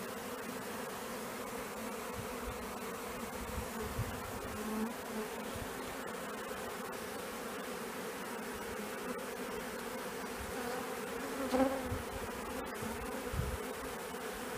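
Honeybees buzzing in a steady hum, swelling briefly about eleven and a half seconds in as the buzz grows louder, with a few soft knocks.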